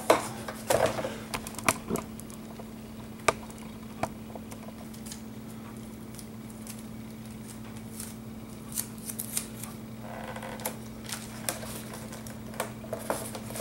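Clear tape and plastic model-plane parts being handled and pressed down by hand: scattered small clicks and crinkles, busiest in the first few seconds and again near the end, over a steady low hum.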